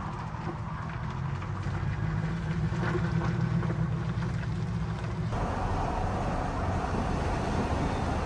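Vehicle engine running as it tows a pop-up camper away over a gravel driveway. About five seconds in it changes abruptly to steady road and engine noise heard from inside a moving vehicle.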